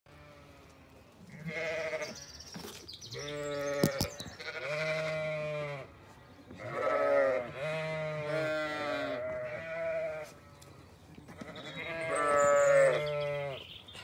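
Zwartbles ewes bleating over and over, several long calls overlapping one another, the flock calling for its feed. A single sharp click sounds about four seconds in.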